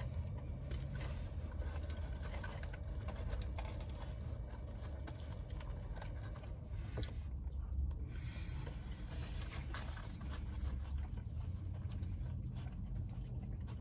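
Steady low rumble of a car heard from inside the cabin, with faint scattered clicks and rustles over it.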